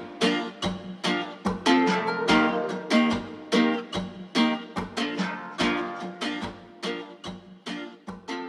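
Outro music of a plucked string instrument picking single ringing notes at about three a second, gradually fading out.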